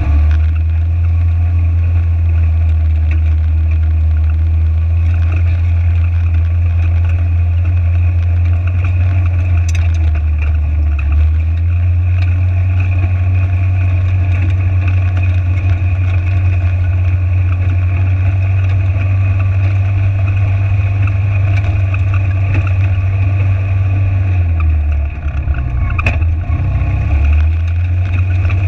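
Side-by-side UTV engine running under way with a steady low drone. Its pitch steps up slightly about twelve seconds in, then dips and wavers near the end.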